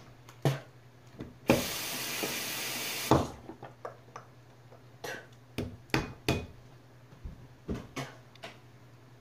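Bathroom sink tap turned on, water running for about a second and a half, then shut off, with a sharp knock as it starts and as it stops. After it come a few light knocks and clicks of things handled at the sink.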